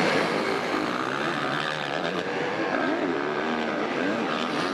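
Motocross bike engine heard from the rider's helmet camera, revving up and down as the bike is ridden along the track.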